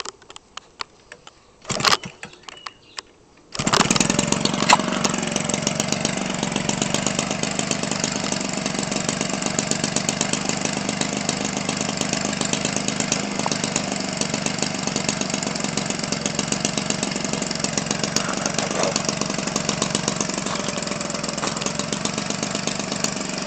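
Homelite 25cc two-stroke string-trimmer engine, converted for an RC airplane with an 18x6 propeller and a gutted Homelite 30cc muffler, hand-started by flipping the propeller: after a few clicks and a sharp knock it catches about three and a half seconds in and runs steadily.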